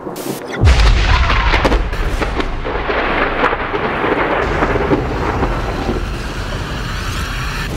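A thunderclap about half a second in, followed by rumbling thunder over heavy rain, which eases off near the end.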